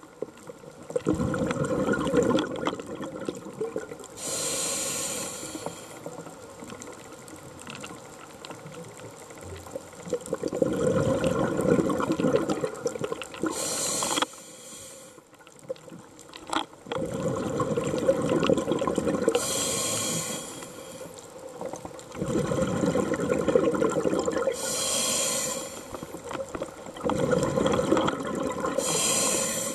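A scuba diver breathing through a regulator, recorded underwater: about five breaths, each a few seconds of low bubbling rumble from exhaled air followed by a short high hiss of inhaling.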